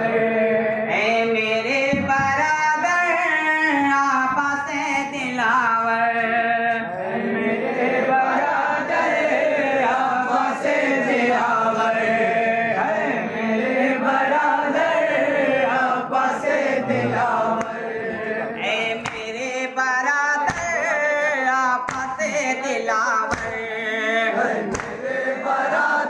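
A group of men chanting a Muharram lament (nauha) together in a loud, sung chorus. Sharp hits break in now and then during the second half.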